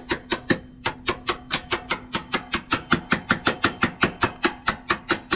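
Hand ratchet clicking steadily at about six clicks a second as a bolt is run in at the rear shock's upper mount.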